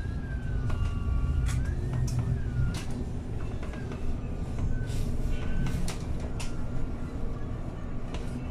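Inside a city bus on the move: a steady low rumble of the drive and road, with scattered clicks and rattles from the cabin. A high whine wavers up and down during the first few seconds.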